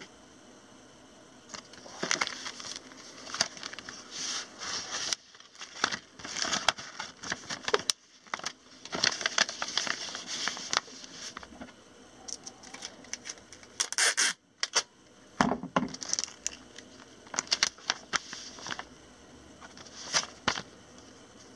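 Rustling, crinkling and scraping of packaging material being handled as a small parcel is packed, in short irregular bursts with a few sharp clicks.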